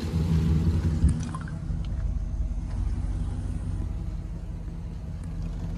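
2013 Chevrolet Silverado 1500 pickup's engine idling steadily, a little louder for the first second before it settles to an even idle.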